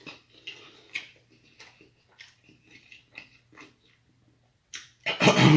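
Close-up mouth sounds of a man chewing a mouthful of burger: irregular wet smacks and clicks, a few each second, then a pause. Near the end a short loud burst of his voice.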